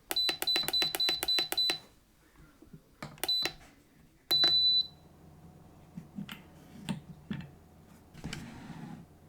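Electric kettle's control panel beeping: a quick run of about seven short high beeps, then two more, then one longer beep about four and a half seconds in. Faint clicks and knocks follow.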